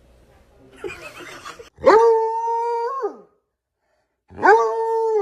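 A dog howling twice, two long steady howls that each rise at the start and drop away at the end, after a brief scuffling noise.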